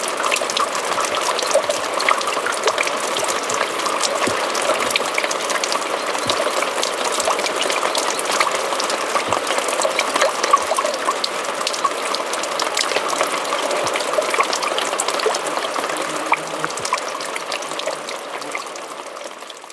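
Small stream of water trickling and splashing down a rocky cliff face, a steady patter of many fine drips and splashes. It fades out near the end.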